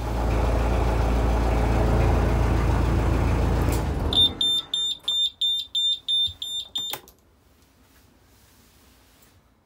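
Narrowboat diesel engine running, then shut down about four seconds in. As it dies, the engine panel's warning alarm beeps rapidly, about three beeps a second, the usual low oil pressure alarm of an engine stopped with the ignition still on. About seven seconds in, the alarm cuts off as the key is turned off.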